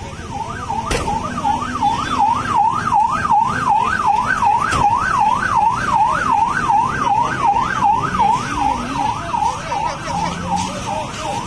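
Ambulance siren in a fast yelp, its pitch sweeping up and down about two and a half times a second, over a low background rumble.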